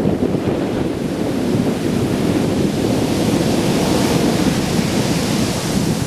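Surf breaking on the shore under strong wind, with heavy wind buffeting on the microphone as a constant low rumble. A hissing rush of water swells up about halfway through.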